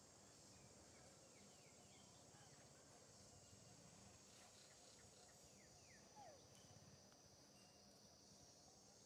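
Near silence: a faint, steady high insect drone of the forest, with a few faint short chirps and one short falling squeak about six seconds in.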